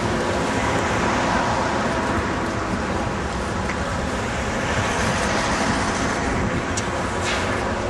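Steady road traffic noise, with cars driving past on the road.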